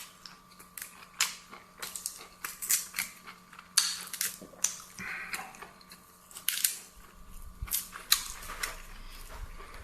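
Close-miked chewing of a meat-filled sausage: a run of sharp, irregular mouth clicks and crunches, one to three a second.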